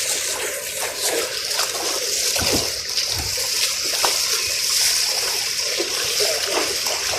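Floodwater rushing and splashing in a steady, unbroken hiss.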